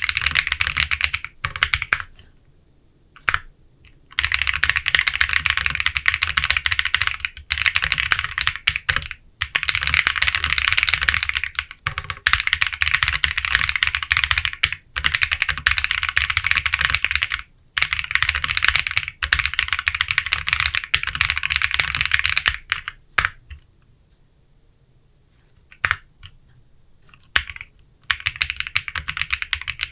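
Fast typing on a Matrix 6XV 3.0 Corsa custom mechanical keyboard with unlubricated Bsun RAW linear switches and PBT keycaps: dense runs of keystrokes. The typing breaks off twice, briefly after about two seconds and for several seconds near the end, with only a few single keystrokes in those gaps.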